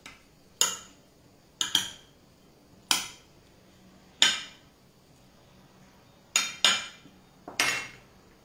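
Cutlery clinking and tapping against a plate and cutting board: about nine short, sharp clinks at irregular intervals, some in quick pairs.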